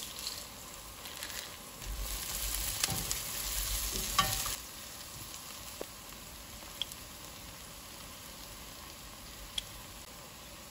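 Sautéed onions, dried red chillies and curry leaves sizzling in oil in a nonstick pan, louder for a couple of seconds while stirred with a nylon spoon, then a steady sizzle with a few faint ticks.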